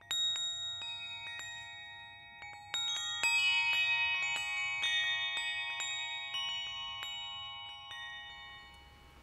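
Wind chimes ringing: many quick, overlapping strikes of clear, high tones that ring on, thinning out and fading away near the end.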